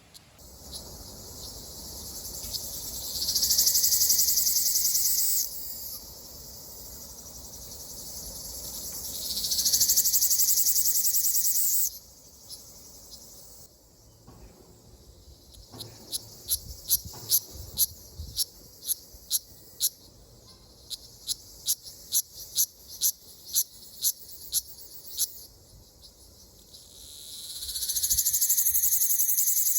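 Ryukyu large brown cicadas singing: a high-pitched sizzling buzz that swells up over a second or two, holds, then cuts off abruptly, three times. Between the buzzes comes a run of sharp short chirps, about two a second.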